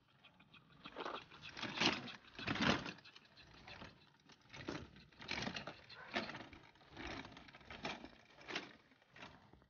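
Toy wagon, built up as a cardboard Thomas train, rolling over pavement, with a rhythmic noisy burst about every 0.8 s.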